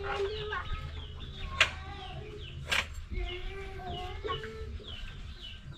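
Chickens clucking, with many short falling calls throughout, and two sharp knocks about a second apart near the middle.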